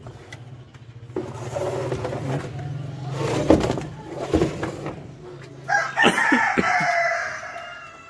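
A rooster crowing once: one long crow of about two seconds, starting about six seconds in, over a steady low hum.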